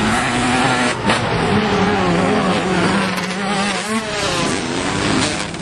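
Dirt bike engine revving up and down, with a rising rev that drops off about four seconds in.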